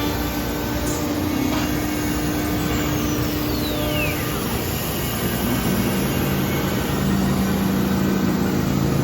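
CNC router running: a steady machine roar with a steady spindle whine that stops about halfway, a whine that falls in pitch around three seconds in, and a lower hum in the second half.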